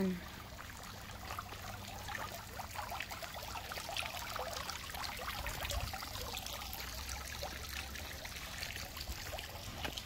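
Tiered garden fountain splashing and trickling steadily into its basin, a little louder from about two seconds in.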